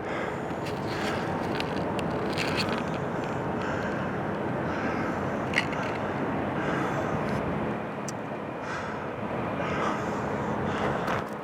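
Steady outdoor noise of distant motor traffic, with the scattered scuffs and clicks of footsteps on a steep road.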